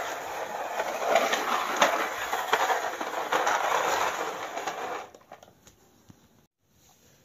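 Plastic toy excavator pushed by hand across a concrete floor, its plastic tracks clattering and rattling with many small clicks; the clatter stops about five seconds in.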